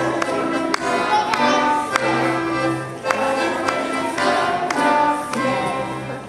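Polish folk dance music played on instruments, with sharp taps on the beat, dipping briefly near the end.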